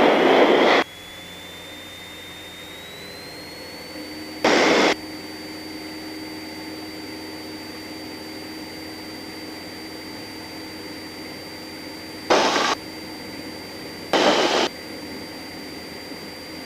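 Cessna 172 light aircraft engine running up to full power for the takeoff roll: a steady hum whose pitch climbs over the first few seconds and then holds. Four brief bursts of noise break in over it, each about half a second long.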